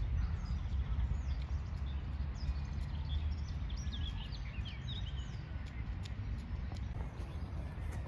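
Wind buffeting the microphone with a steady low rumble, the loudest thing throughout, while small birds chirp and sing in the background, most busily in the middle.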